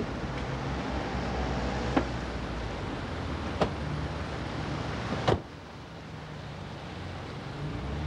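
Steady background rumble broken by three sharp knocks, the last a heavier thump, after which the background suddenly drops quieter.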